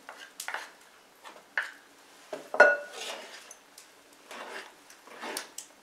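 A spoon scraping and knocking wet bread sponge out of a small bowl, with one sharp ringing clink against the bowl about two and a half seconds in. After that come softer swishing strokes as the sponge is stirred into flour in a large wooden bowl.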